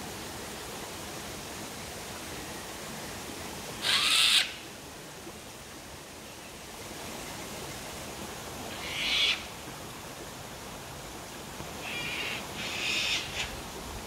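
Cockatoos giving harsh screeches: once about four seconds in, once around nine seconds, and twice in quick succession near the end, over the steady rush of a waterfall.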